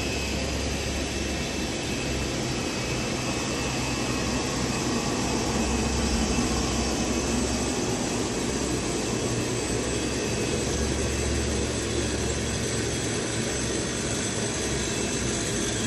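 Flux-cored welding wire drawing machines running on a production line: a steady mechanical din with a strong low hum and faint thin high tones above it.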